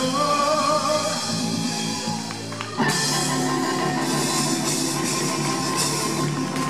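Live rock and roll band: a male voice holds a sung note over electric guitar, then about three seconds in the drums and full band come in loudly, with cymbals.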